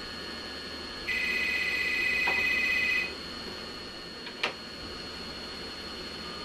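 Electronic ringer of a beige desk telephone trilling once for about two seconds, followed a little later by a single sharp plastic clack as the handset is knocked off its cradle.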